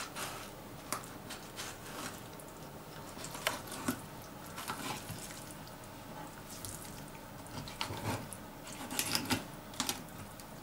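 Small boning knife cutting a raw common bream's fillet away along its rib bones on a wooden cutting board: scattered soft clicks and knife-on-bone ticks, with a cluster of them near the end.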